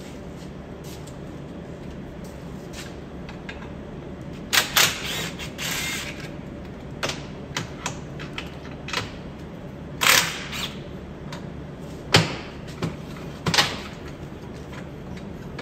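Irregular sharp clicks, clacks and knocks of metal car-strut parts and tools being handled on a workbench, with several louder knocks spread through.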